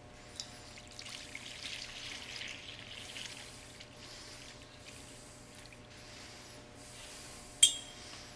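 Water poured from a metal ewer into a baptismal font's bowl, a splashing trickle strongest in the first few seconds and then thinning. A single sharp clink near the end is the loudest sound.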